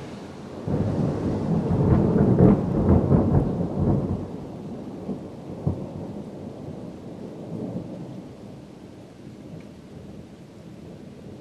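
Thunder: a rumble that breaks in suddenly about a second in, stays loud and crackling for about three seconds, then rolls away. A single sharper crack comes midway, and a low rumble lingers after.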